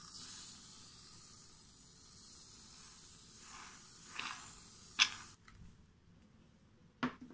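Aerosol foam can spraying foam onto slime: a steady hiss that swells around four seconds in and stops about half a second later. Two sharp knocks follow, the first about five seconds in and the loudest, the second near the end.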